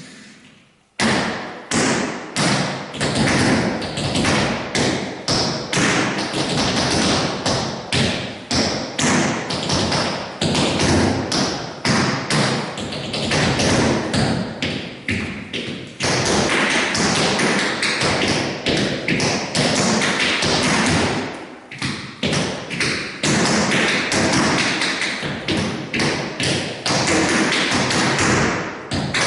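Tap shoes striking a wooden floor in fast, dense rhythms of sharp metal taps and heavier heel drops, starting about a second in and running without music, with a short lull partway through.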